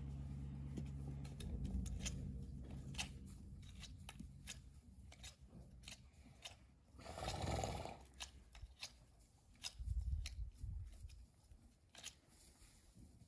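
A mule's front hoof being handled and picked, with irregular small clicks and scrapes. A rough whooshing burst of about a second comes a little past seven seconds in.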